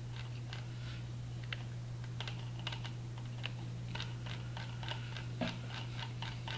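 Scattered light clicks from a computer mouse and keyboard, coming more often in the second half, over a steady low hum.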